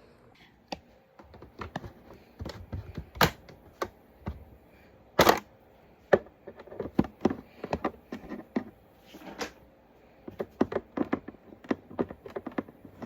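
Small items being handled and set down: an irregular run of clicks, taps and knocks, with two louder knocks about three and five seconds in and a quicker patter of taps near the end.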